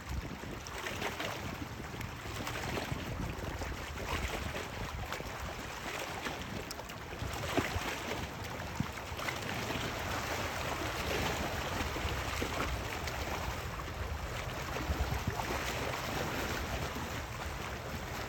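Water sloshing and splashing around a kayak, with wind on the microphone.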